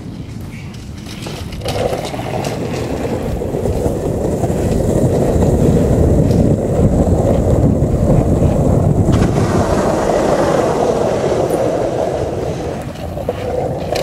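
Steady low rumble of wheels rolling on asphalt, mixed with wind on the microphone, while moving along a street beside a mountain bike. It grows louder about two seconds in and eases off near the end.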